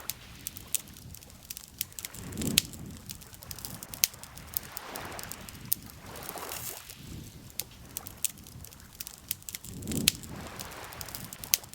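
Wood campfire crackling with frequent sharp pops, over gentle lake water lapping in slow swells a few seconds apart.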